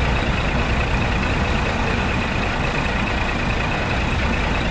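Steady truck engine and road noise heard from inside the moving cab: an even low rumble with a faint steady high tone.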